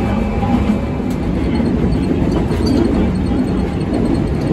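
Kumamoto City Tram 8500 series car running on street track: the steady low hum and rumble of its nose-suspended drive traction motors and gearing, with wheel noise on the rails.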